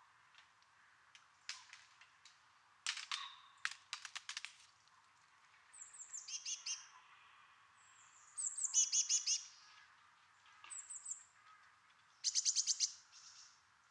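Small woodland birds singing and chirping in four short bursts of quick, high notes, some opening with a falling trill, after a run of sharp ticks in the first few seconds.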